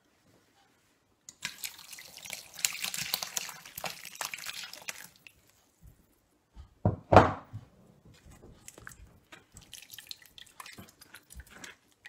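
Braising sauce poured through a stainless-steel mesh sieve into a pan, splashing for a few seconds. About seven seconds in comes a single loud knock, then small drips and scrapes as a spoon presses the solids in the sieve.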